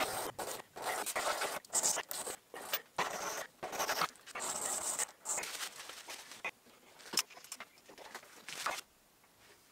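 Small brass bearing halves rubbed by hand on a sharpening stone: a rough scraping in repeated uneven strokes as their faces are cleaned up, stopping about six seconds in, followed by a few light clicks.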